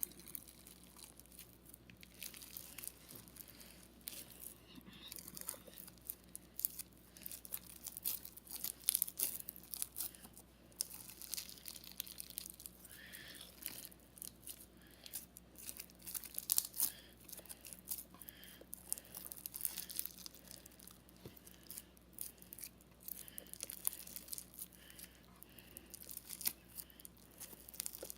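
Crunchy slime packed with fishbowl beads being kneaded by hand: a continuous, irregular crackling of small pops and clicks.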